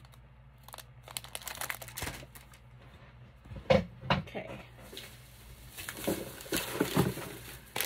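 Cellophane packaging crinkling and rustling in intermittent bursts as it is handled. One sharp knock comes a little under four seconds in, and the rustling grows busier near the end.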